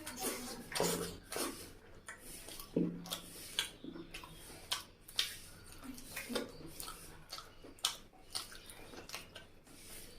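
Close-up eating sounds: a person chewing a mouthful of chicken curry and rice, with irregular wet smacks and clicks of the lips and mouth.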